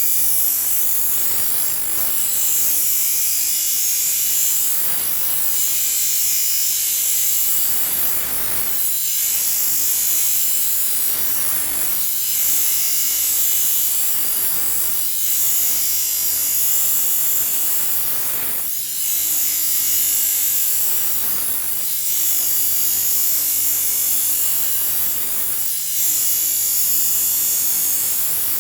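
Steel knife blade being ground on the spinning 120-grit disc of a scissors-sharpening machine, a steady high grinding hiss over the machine's hum. The grind swells and eases with each pass of the blade, about every three seconds, as the chipped edge is ground back to its lowest point.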